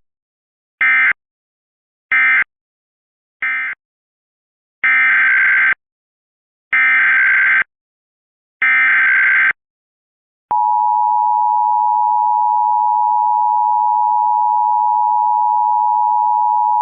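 Emergency Alert System tones: three short screeching SAME data bursts, the end-of-message code closing the previous test, then three longer SAME header bursts opening the next alert. About ten seconds in, the steady two-tone EAS attention signal starts, and it is still sounding at the end.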